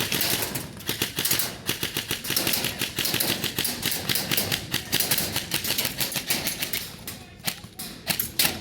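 Airsoft guns firing rapid, overlapping volleys of sharp clicking shots, easing off near the end.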